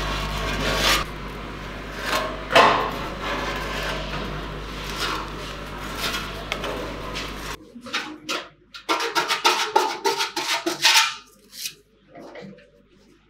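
A spreader scraping and smoothing body filler over a bare steel scooter body panel, in repeated strokes. A low steady hum sits under the strokes in the first half and stops about halfway through.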